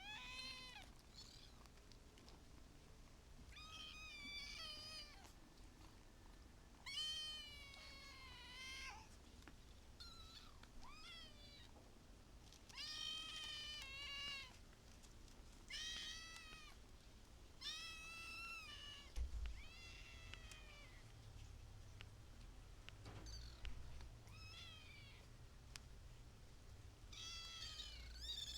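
Kittens meowing: about a dozen high, thin calls that bend up and down in pitch, scattered with short gaps between them and sometimes coming two in quick succession.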